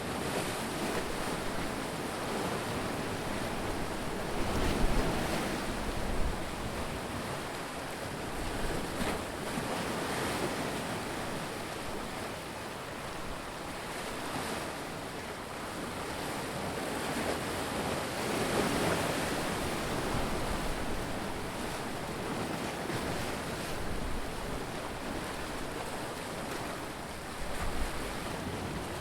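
Ocean waves breaking and washing in, a steady surf noise that swells and fades every several seconds, with some wind on the microphone.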